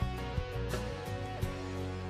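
Background music: a light guitar track with plucked notes over held chords.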